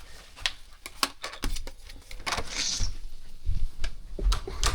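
Scattered clicks and knocks with irregular low thumps of footsteps and handling, in a small room, with a brief hiss about two and a half seconds in.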